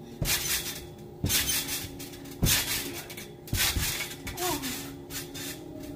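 A person bouncing on a trampoline: about five thumps of feet landing on the mat, roughly one a second.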